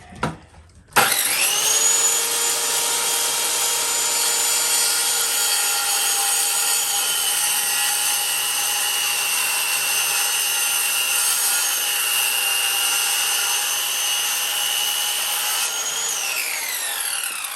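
Table saw switched on about a second in, its blade whining steadily as it cuts a cedar plank, then switched off near the end, the whine falling in pitch as the blade spins down.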